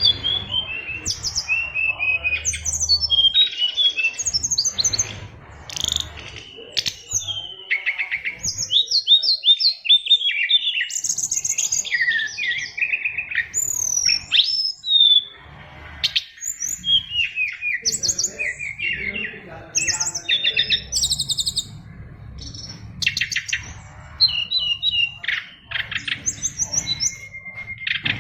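Fulvous-chested jungle flycatcher (sikatan rimba dada coklat) singing a long, fast, varied song of chirps, trills and whistled glides, with brief pauses between phrases. The song is packed with fills, the mimicked phrases of other birds that keepers prize.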